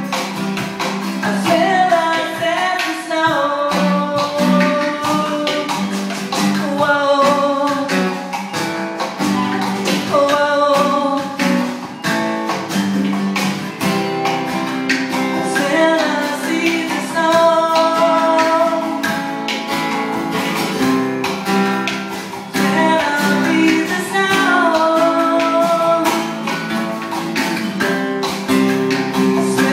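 A small band playing live: acoustic guitar and drums keeping a steady beat, with a melody line on top.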